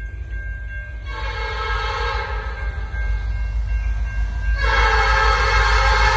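Air horn of an approaching Canadian National SD75I diesel-electric locomotive sounding two long multi-tone blasts, the second starting about four and a half seconds in. Underneath is a low rumble that grows louder.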